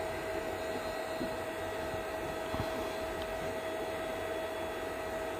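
Steady background hum and hiss with a faint, steady whining tone and no distinct events.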